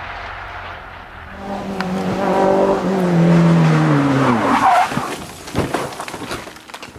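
Rally car engine coming up hard and then dropping in revs under braking, with the tyres skidding as the car slides into the corner, followed by a few sharp knocks.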